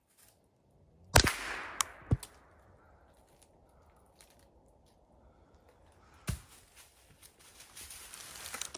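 A single .22 rimfire shot about a second in, with a short echo, followed by a couple of smaller sharp knocks. Near the end, footsteps rustling through dry leaves.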